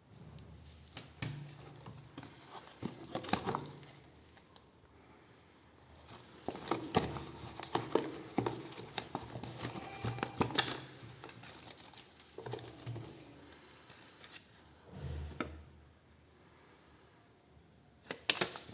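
Packaging and parts being handled: crinkling and rustling with scattered clicks and knocks, coming in several bursts with short quiet gaps between.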